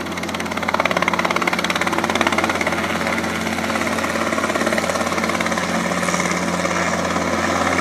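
Robinson R22 Beta II helicopter running steadily, its four-cylinder Lycoming piston engine under a fast, even beat from the rotor blades.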